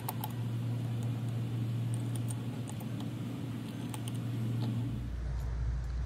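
Light, irregular metallic clicks and ticks of an Allen wrench turning polished stainless steel bolts loose on an aluminum box, over a steady low hum that drops lower about five seconds in.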